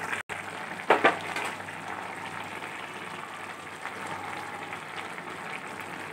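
Ash gourd curry simmering in a metal pot, a steady bubbling hiss, with a couple of sharp knocks about a second in.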